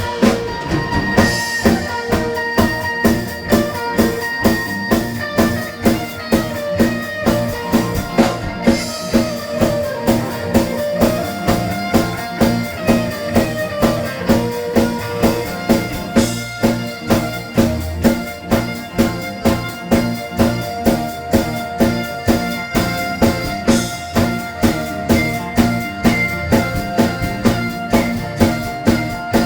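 A band playing live through an instrumental passage without singing: a drum kit keeps a steady beat, about two strokes a second, under guitar.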